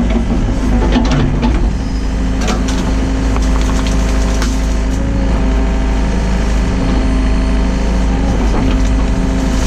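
Hyundai excavator's diesel engine running steadily under work, with scattered short knocks and clatter.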